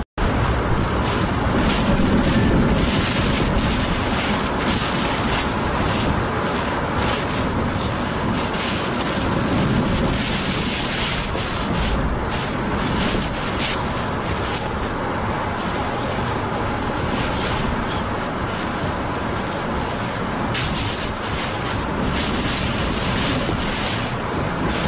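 Hurricane wind blowing hard with driving rain, a steady rushing noise that swells in gusts, strongest a couple of seconds in.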